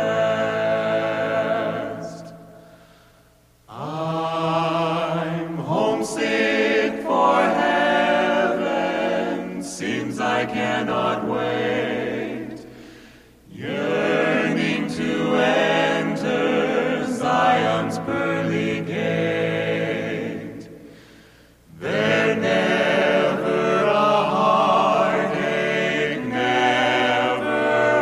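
Male vocal quartet singing a gospel hymn in close harmony, in long sustained phrases that die away three times and start up again.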